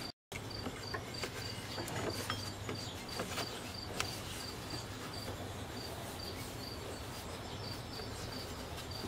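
A cricket chirping steadily in short even pulses, about three a second, over a low background hum, with a few faint clicks.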